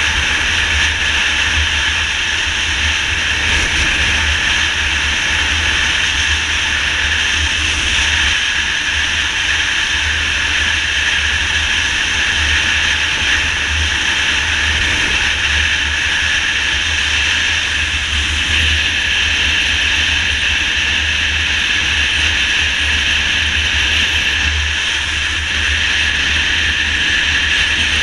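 Motorcycle cruising at highway speed: steady wind rush buffeting the microphone, with the engine running evenly underneath.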